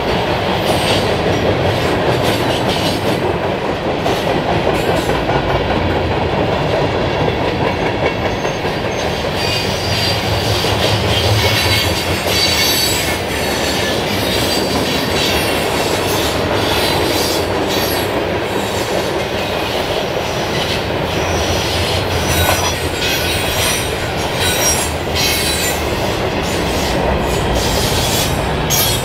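Freight cars of a passing train rolling by: a steady noise of steel wheels on rail with a rhythmic clickety-clack of the wheelsets. A high wheel squeal comes and goes from about ten seconds in, and sharp clicks grow more frequent near the end.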